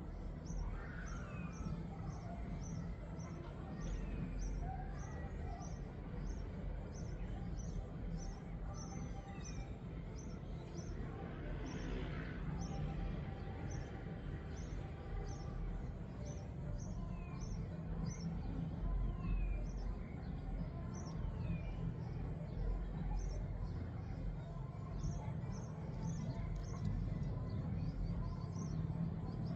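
Wind rumbling against the microphone, with a small animal giving a high chirp over and over at a steady pace of about three every two seconds. Every few seconds another call slides down in pitch.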